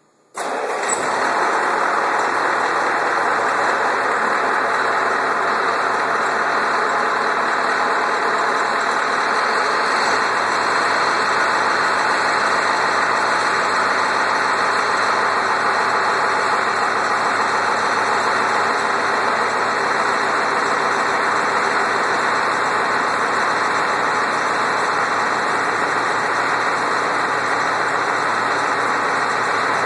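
Freshly rebuilt 7.3 L IDI V8 turbo diesel in a 1994 Ford F-250 comes to life abruptly just after the start, then runs at a steady idle.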